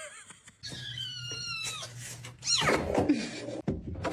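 A cat meowing: a long high cry that slides slowly down in pitch, then a louder cry that sweeps sharply downward about two and a half seconds in.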